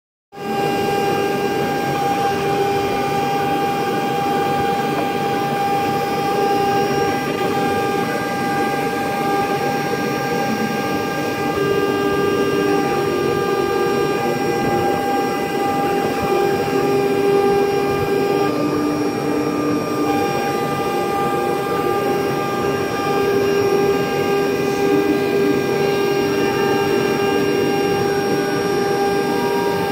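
CNC router spindle running with a steady high whine while a fine engraving bit mills isolation traces into a copper-clad circuit board. Under it, a lower hum from the feed motors shifts in pitch and drops in and out as the head moves.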